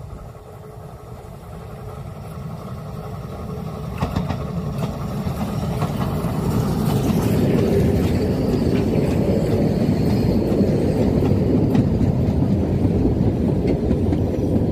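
Narrow-gauge steam train hauled by Ik No. 54 approaching and passing close by. It grows steadily louder over the first eight seconds, with a few sharp clicks about four seconds in, then stays loud as the coaches roll past on the track.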